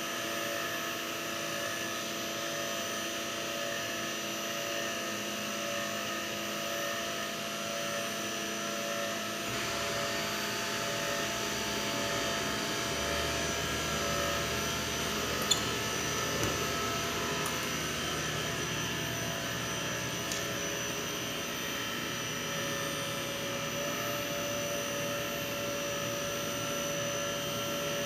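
A machine running with a steady hum of several tones. Its sound thickens about nine seconds in, a deeper hum joins a few seconds later, and there is a single sharp click about fifteen seconds in.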